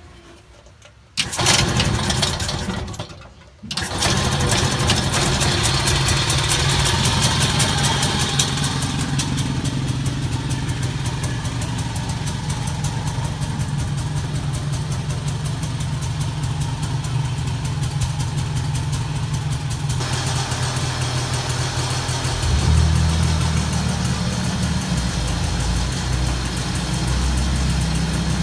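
Daihatsu Midget MP5 three-wheeler's single-cylinder two-stroke engine being started: it fires about a second in and falters, then catches at the second try and runs steadily. Its note changes for a while about three-quarters of the way through.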